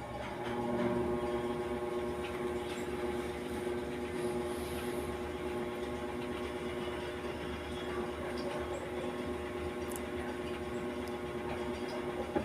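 Whirlpool 8MWTW224WJM top-load washing machine spinning its drum at speed in the spin cycle: a steady motor whine with several held tones.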